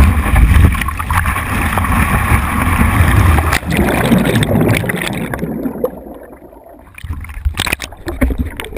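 Rushing water and spray against the microphone of a wakeboard-mounted GoPro in its waterproof housing. About three and a half seconds in the camera goes under water and the sound turns muffled and gurgling, fading low, then bubbling with sharp clicks and knocks on the housing near the end.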